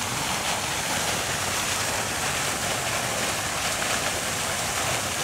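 Steady rushing noise of running water, even and unbroken.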